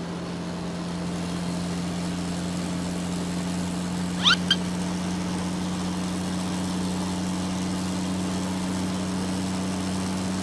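Cartoon truck engine sound effect running steadily. About four seconds in, two quick rising squeaky chirps sound over it.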